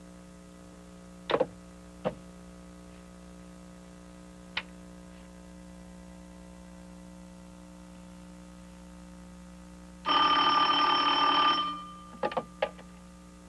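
A desk telephone's bell rings once, about a second and a half long, near the end. A few short clicks come before it and just after it, over a faint steady hum.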